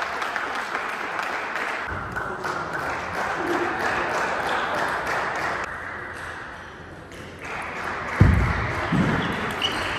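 Table tennis in a large hall: a murmur of voices and hall noise, then near the end a rally with short, light clicks of the ball on bat and table and two heavy thumps about a second apart.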